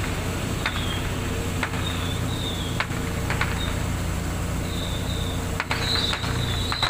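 Steady low drone of ships' engines running in harbour, with short high chirps recurring about once a second and a few sharp clicks over it.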